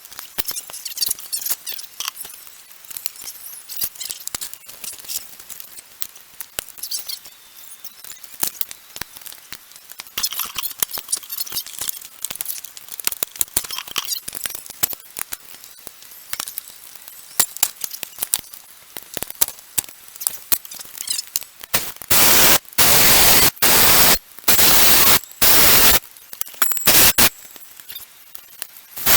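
A big screwdriver prying the water pump off a 6.0 LS engine: a steady run of metal clicks and scrapes, then a cluster of several loud, harsh scraping bursts near the end as the pump is worked loose.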